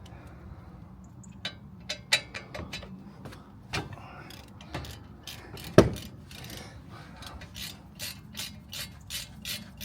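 Ratchet clicking as the 7mm Allen-head brake caliper bolts are undone, with one sharp metal knock about six seconds in.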